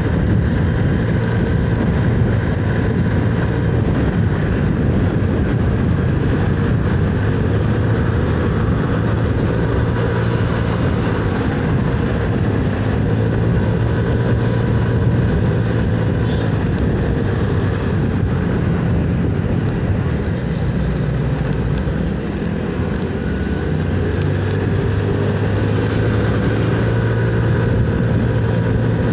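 Motorcycle engine running steadily at cruising speed, heard from the rider's seat together with road noise.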